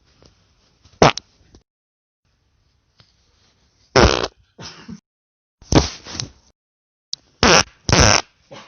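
A run of farts, one after another: a short one about a second in, then after a pause a string of about six more, some short and sharp, some longer and buzzing for about half a second.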